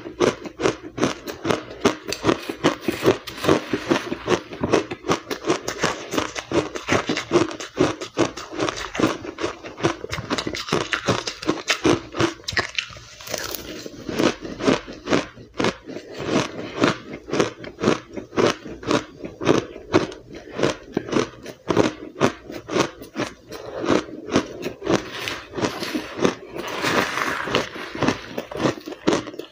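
Close-up biting and chewing of powdery blender-crushed ice: a rapid, continuous run of crisp crunches, several a second, with a brief pause about halfway through.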